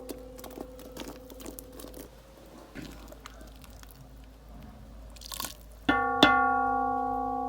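A ringing, bell-like musical tone fades out over the first two seconds. Faint clicks and scrapes follow. About six seconds in, the tone is struck again, struck once more a moment later, and held.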